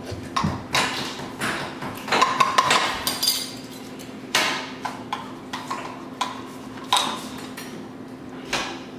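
A metal spoon clinking and scraping against cereal bowls in irregular knocks, as a bowl of chocolate cereal mixture is stirred and scraped out.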